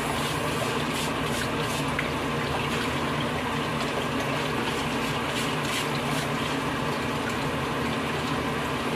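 Water splashing and running in a kitchen sink as crabs are scrubbed clean by hand, with a few short scratchy scrubbing strokes, over a steady low hum.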